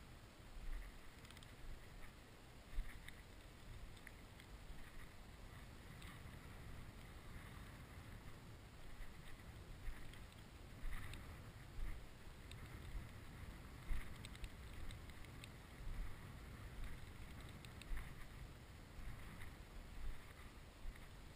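Footsteps swishing through dry, mown rapeseed stubble at a slow walking pace, about one a second, over a low wind rumble on the microphone.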